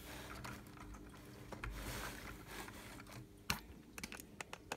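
Faint handling sounds of a hand on a plastic brick-built toy shop: a soft rustle about two seconds in, then several light plastic clicks near the end.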